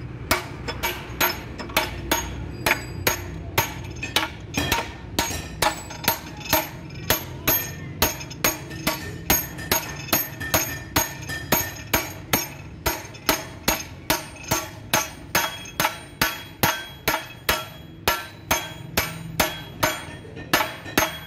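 Steel hammer striking the splined shaft end of a truck gearbox over and over, about two to three blows a second, each blow ringing briefly off the metal.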